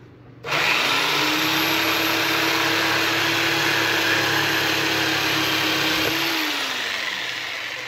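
A Bauer corded orbital jigsaw starts about half a second in with a rising whine and saws through a pallet board. Near the end it is switched off and winds down, the whine falling in pitch.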